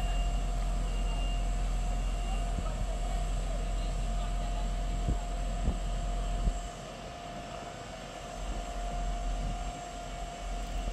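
Diesel multiple-unit railcar standing at idle: a steady low engine rumble with a constant hum over it, and a short beep repeating about once a second over the first couple of seconds. The rumble drops in level a little past halfway, just after a few light knocks.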